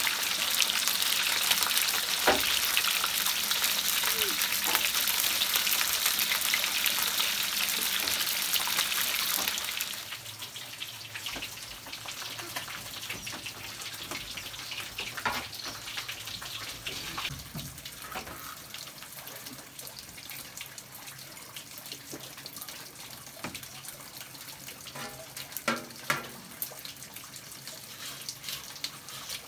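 Whole fish frying in hot oil in a metal wok over a wood fire: a loud, steady sizzle that drops off suddenly about ten seconds in, leaving a quieter sizzle with a few clicks and scrapes of a wooden spatula in the wok.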